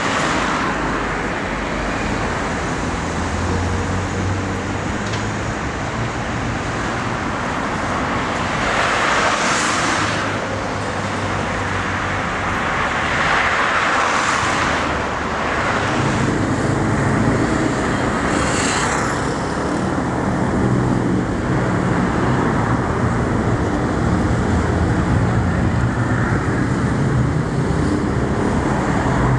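Street traffic: a steady wash of road noise with several cars passing one after another, each swelling and fading. A low engine hum comes in about halfway through.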